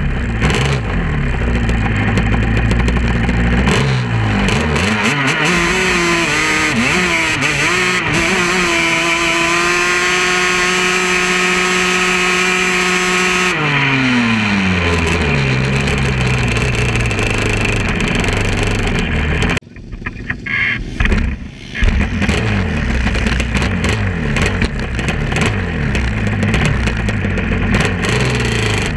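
Sport quad (ATV) engines under hard throttle in sand: the pitch climbs and wavers, holds high and steady, then falls away about halfway through as the throttle is let off. The sound drops out briefly about two-thirds of the way in, then the engines run again.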